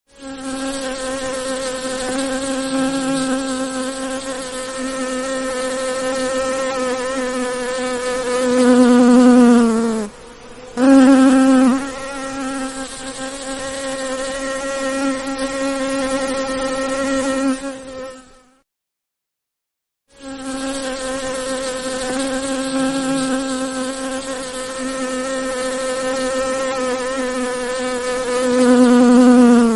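Bee buzzing steadily in flight with a slightly wavering pitch; it swells louder and drops in pitch just before a short break about ten seconds in, and again near the end. The buzz stops for about two seconds around the middle, then the same buzz starts over as a loop.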